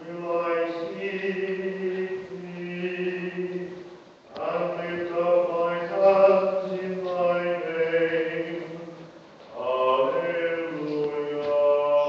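Voices singing a slow hymn at the offertory of the Mass, in long held notes grouped into phrases of about four to five seconds, with short breaks for breath between them.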